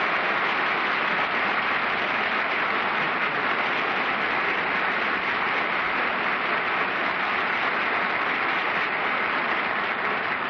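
Studio audience applauding steadily, a dense patter of many hands that eases off slightly near the end.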